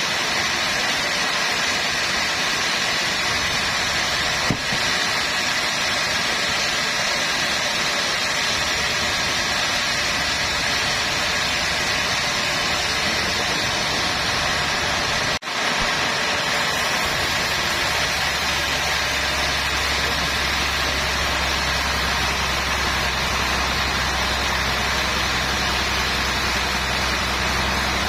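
Sawmill machinery running steadily with a continuous mechanical whir and hiss. A momentary break comes about halfway through, after which a low steady hum joins.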